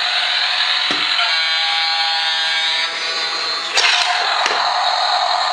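Bump-and-go toy cruise ship running, its small electric motor and plastic gears whirring steadily. A steady pitched tone sounds for about a second and a half, and there are a few sharp knocks around four seconds in as a hand handles the toy.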